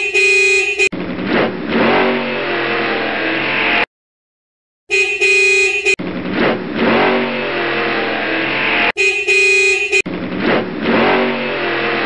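Car horn honking for about a second, followed each time by about three seconds of a vehicle engine running. The sequence repeats three times, with a second of silence after the first round.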